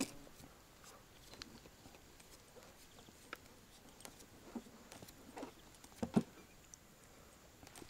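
Faint scattered taps and clicks, with a few short louder knocks between about four and a half and six seconds in: a pike float rig (kruzhok) and its line being handled in a boat.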